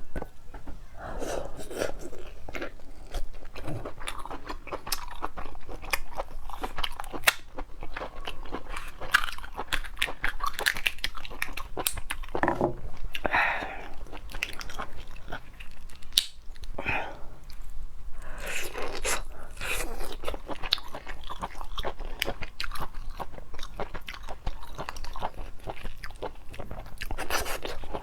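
Close-miked eating sounds: a person biting, chewing and crunching on crab, with many sharp wet mouth clicks and smacks throughout.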